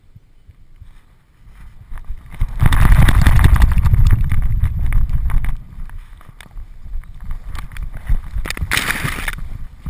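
A dog running through tall grass, heard through the camera strapped to its back: rustling, jolts from its strides and wind on the microphone. Loud from about two and a half seconds in to about five and a half, then quieter, with another short loud burst near the end.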